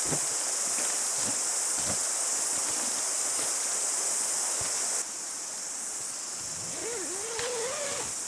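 Steady, dense high-pitched insect chorus, with a few faint soft taps and rustles from the sleeping pad being handled. The chorus drops in level abruptly about five seconds in, and a short wavering tone sounds near the end.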